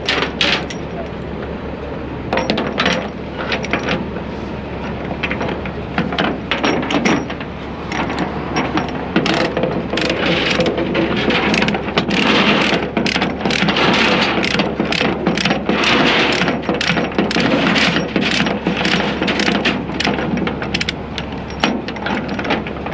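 Steel tie-down chain clanking and rattling against a rollback's diamond-plate steel deck as the load is chained down, in many irregular metallic clinks that come thickest in the second half, over a steady low hum.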